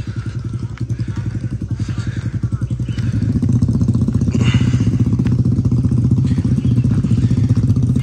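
Motorcycle engines idling just after a cold start, with an even pulsing beat. About three seconds in the engine sound gets louder and fuller.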